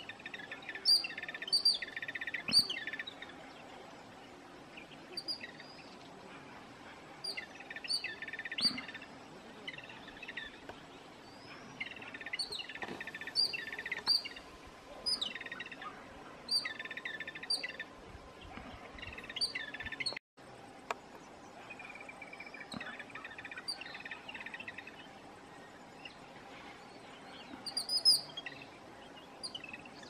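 Jungle babblers calling: bouts of short, squeaky, repeated notes, with one louder call near the end. The sound drops out for a moment about two-thirds of the way through.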